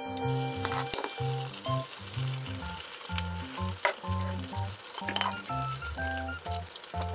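Two eggs frying in a hot frying pan, sizzling from the moment they are poured in.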